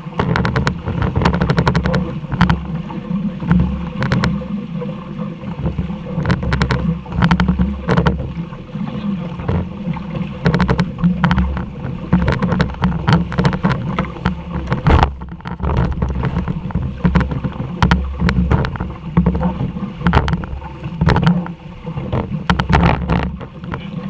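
Wind buffeting the microphone over open water during a jukung sailing race, a gusty low rumble with frequent sharp knocks and slaps from the boat and water.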